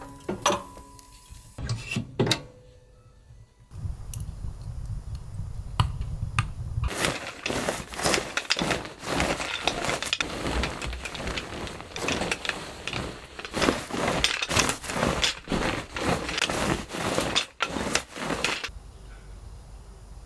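A sticky lint roller rolled back and forth over a down duvet, making a quick run of rasping, crackling strokes from about seven seconds in until near the end. At the start, a couple of knocks as the metal door of a wood-burning stove is handled.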